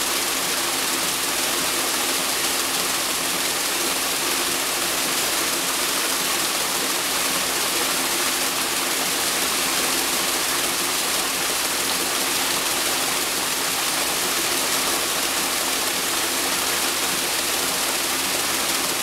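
Paddle wheel aerator running: its four paddle wheels churn and splash water in a steady, unbroken rush, with a steady low hum from the central drive unit underneath.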